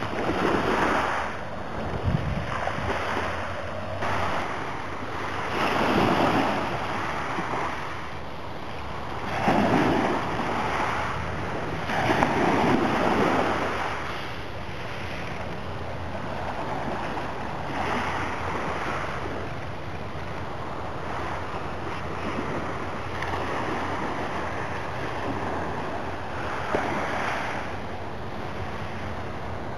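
Sea waves washing onto the beach in irregular surges, with wind blowing over the microphone.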